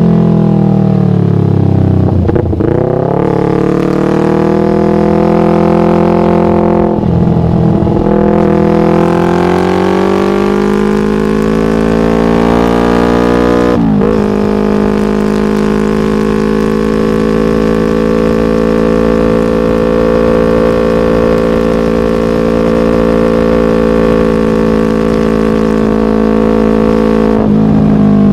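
Yamaha MT-25's 250 cc parallel-twin engine running through a Shadux aftermarket racing exhaust. The engine speed sinks and climbs again three times in the first half, then holds a steady high note for about twelve seconds before dropping near the end.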